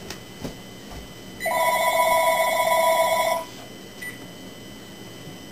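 Telephone ringing: one electronic warbling ring lasting about two seconds, starting about a second and a half in.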